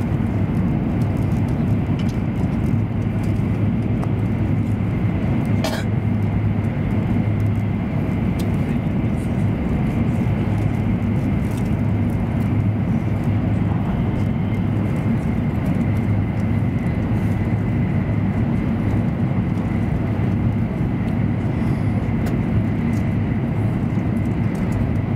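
Steady cabin noise of an E7 series Shinkansen running at speed: an even low rumble of the running gear and rushing air, with a faint steady high whine. A short click about six seconds in.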